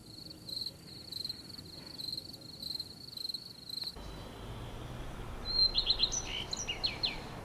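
Night insects trilling steadily at a high pitch, cut off abruptly about four seconds in. A bird then calls several quick, sharp notes over a faint background hiss.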